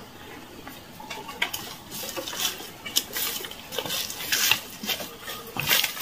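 Footsteps crunching and rustling through dry leaf litter and brush, irregular, getting louder and closer in the second half.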